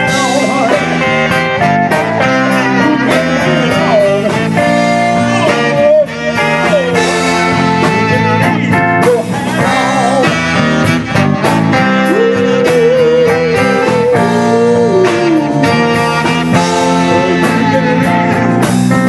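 Rock band playing, with a guitar lead of bending, wavering notes over the backing.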